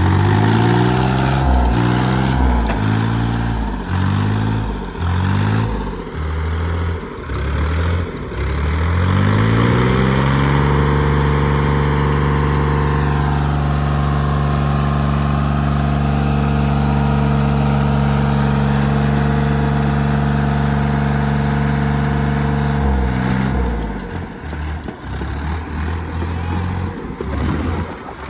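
Diesel tractor engine straining under full load in a tractor tug-of-war. For about the first ten seconds the revs rise and fall about once a second, then they hold steady at high throttle for about twelve seconds, and near the end they drop and surge unevenly.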